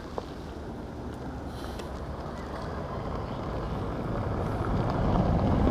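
A low rumbling noise that grows steadily louder, with one light click just after it begins.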